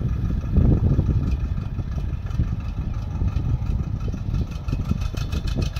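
Swaraj mini tractor's diesel engine running steadily under load as it pulls a single-bottom mouldboard plough through the soil, getting louder about half a second in.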